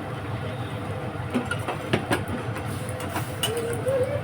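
A steady low mechanical hum in a kitchen while a curry cooks, with several sharp clicks and knocks of utensils about a second and a half to three seconds in.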